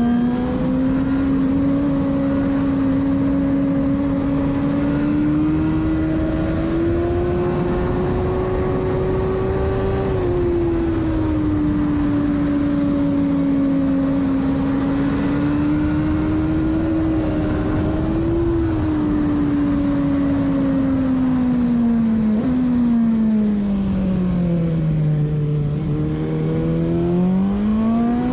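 2017 BMW S1000RR inline-four engine with an Akrapovic exhaust, heard onboard through a series of corners. The engine note rises and falls smoothly, sinks low as the bike slows about three quarters of the way through, then climbs again near the end. Steady wind and tyre rush runs underneath.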